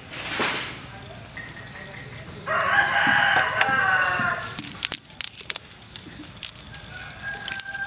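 A rooster crows once, a call of about two seconds starting about two and a half seconds in, the loudest sound here. A short hiss comes at the very start, and after the crow a run of sharp clicks and snaps.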